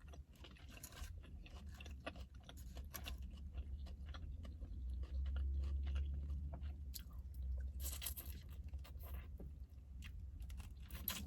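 Close-up chewing and crunching of food in the mouth, many small crackles and wet clicks, over a steady low hum.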